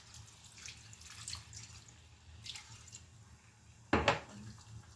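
Water poured from a glass into a pan of chicken curry, splashing and dripping, with a louder knock about four seconds in.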